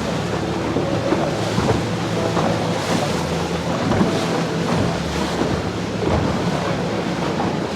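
Wind buffeting the microphone over rushing water, with the low, steady hum of a boat's engine underneath.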